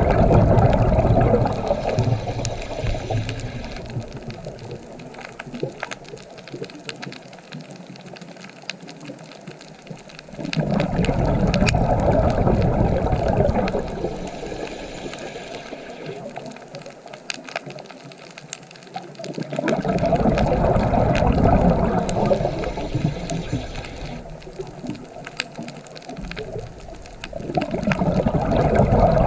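Ocean waves breaking again and again, about every nine or ten seconds. Each wave comes in suddenly and dies away slowly over several seconds.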